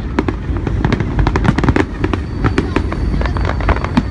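Fireworks going off in rapid succession: many sharp bangs and crackles, several a second, over a continuous low rumble.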